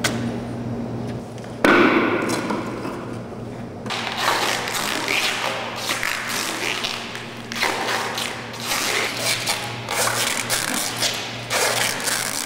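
Handling noises as a performer works with objects on a concrete floor: a sharp thump about two seconds in, then a run of scraping, rustling noises and taps. A steady low hum runs underneath.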